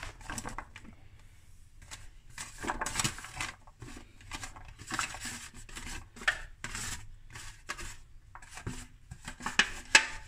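Chopped cucumber and sweet peppers tipped from a bowl into a plastic tub of cooked pasta, with a utensil scraping the last pieces out of the bowl: a run of short scraping and rustling sounds. A sharp clink near the end is the loudest sound.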